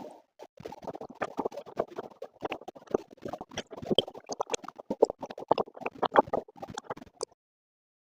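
Wet flour batter being mixed in a bowl: a dense, irregular run of soft squelching and scraping that cuts off abruptly near the end.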